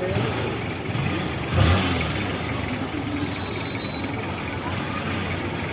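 Steady vehicle engine and road noise, with one louder thump about a second and a half in.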